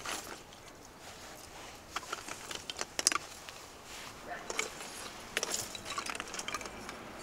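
Scattered light clicks and clinks of Christmas baubles being handled and hung on the branches of a small fir tree.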